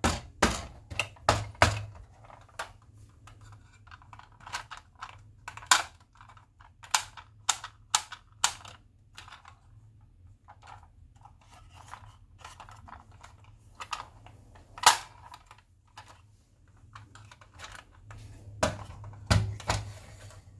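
Irregular sharp plastic clicks and knocks from a green plastic crocodile-head toy being handled and set down on a hard surface. The loudest click comes about fifteen seconds in, with a cluster near the end.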